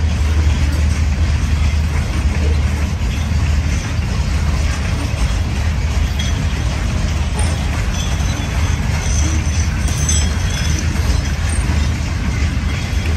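Covered hopper cars of a freight train rolling past, a steady low rumble of wheels on rail.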